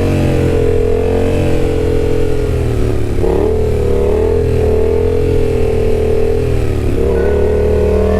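Yamaha XSR700's parallel-twin CP2 engine running under throttle during a knee-knock wheelie pop-up. The revs hold fairly steady, with a dip and pick-up about three seconds in and again near seven seconds.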